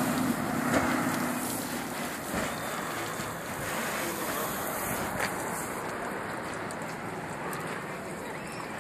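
Steady outdoor noise of street traffic, with wind on the microphone and a few faint clicks.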